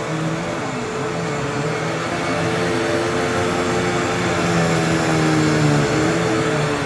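Vacuum cleaner running, its motor whine wavering up and down in pitch over a steady rush of airflow.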